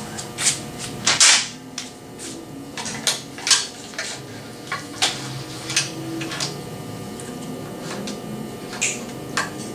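Parts of a CNC router kit being handled and fitted: a string of irregular sharp clicks and knocks, the loudest about a second in.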